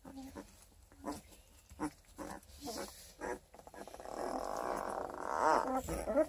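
Twelve-day-old Redtick × Black and Tan Coonhound puppies squirming in wood shavings, with short scattered squeaks and rustles. From about four seconds in, one puppy gives a longer, rough, wavering cry lasting about two seconds.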